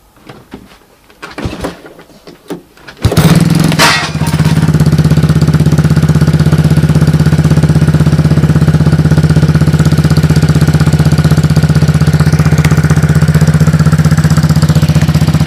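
Honda TRX200 ATV's single-cylinder four-stroke engine cold-started on the recoil pull cord: a few pulls, then it catches about three seconds in and runs steadily.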